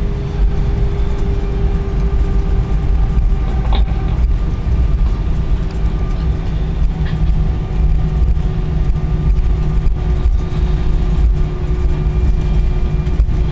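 Cabin noise of a jet airliner taxiing after landing: a steady low rumble with an even engine hum.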